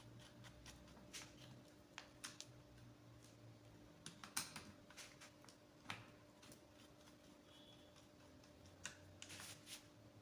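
Faint, scattered clicks and taps of wire and terminal handling on a contactor, as a control cable is connected to its normally open auxiliary contact, over a faint steady hum.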